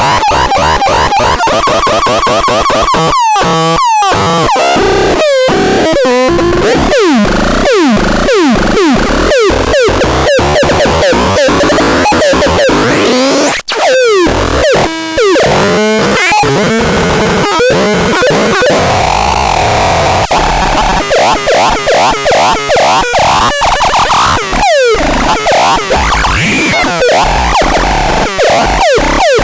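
Synthesizer sounding a dense, noisy electronic patch full of repeated quick downward pitch sweeps, like zaps, with a brief drop-out about halfway through.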